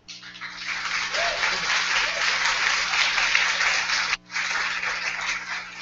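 Audience applauding: a dense patter of many hands clapping that starts suddenly, breaks off for a split second about four seconds in, then carries on and begins to thin out near the end.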